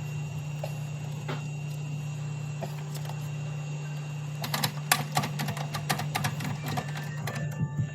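A steady low hum with a rapid, irregular run of sharp clicks and rattles starting about halfway through.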